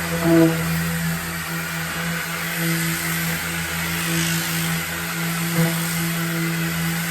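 Electric power sander running steadily against a wooden butcher-block countertop, a constant motor hum under the rasp of sandpaper on wood. A brief knock about half a second in.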